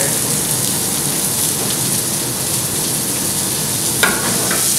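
Diced boiled potatoes sizzling steadily as they sauté in a frying pan over a gas flame. A brief knock comes about four seconds in.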